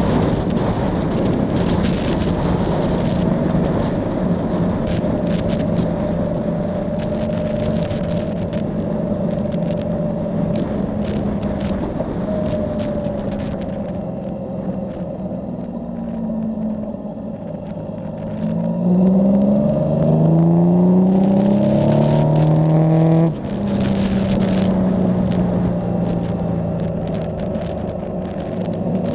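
Yamaha Tracer motorcycle engine running at cruise with wind rushing over the onboard microphone. Midway the engine eases off and quietens, then its pitch climbs in several rising steps as it accelerates through the gears, louder, before the throttle shuts off abruptly.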